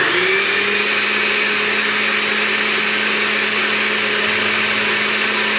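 Electric kitchen blender running at full speed, blending a banana, dates and milk shake. Its motor tone climbs briefly as it gets up to speed, then holds steady, and it cuts off suddenly at the end.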